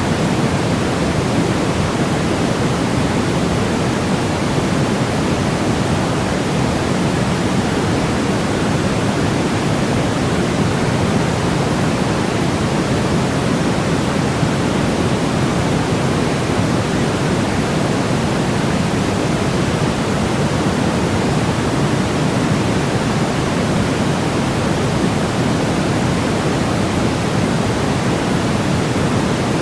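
Steady synthetic noise for baby sleep: an even, unbroken hiss weighted toward the low end, like pink noise, with no changes in level.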